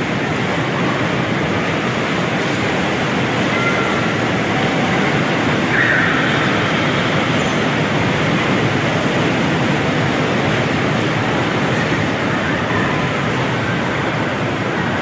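Steady, loud din of an indoor bumper car rink: the electric bumper cars running on the rink floor amid the general hubbub of the amusement hall, with a short higher-pitched sound about six seconds in.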